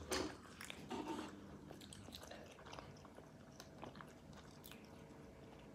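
A person chewing a mouthful of sandwich close to the microphone: faint, irregular small crunches and mouth clicks.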